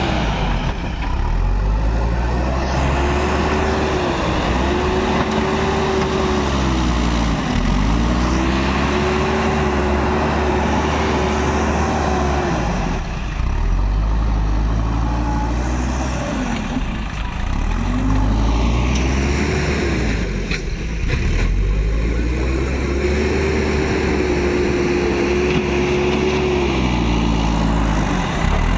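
JCB backhoe loader's diesel engine running loud while loading sand. Its revs climb and fall back over and over, every few seconds, as the machine works each bucketful.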